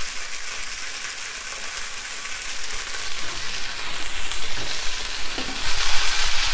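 Marinated king prawns sizzling in hot oil in a frying pan: a steady frying hiss that grows louder near the end.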